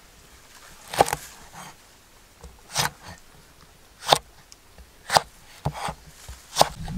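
A cleaver chopping a red chilli on a thick wooden chopping board: about six sharp knocks of the blade on the wood, roughly a second apart, the first about a second in.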